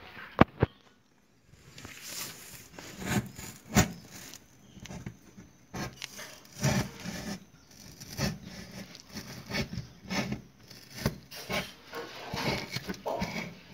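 Craft knife blade stabbing into corrugated cardboard and sawing back and forth through it: a run of irregular scraping, rasping strokes, with two sharp clicks just after the start.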